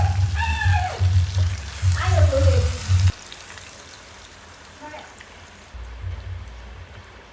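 Food frying in hot oil with a steady sizzle. For the first three seconds a song with heavy bass and a voice plays over it, then cuts off suddenly, leaving the sizzle on its own.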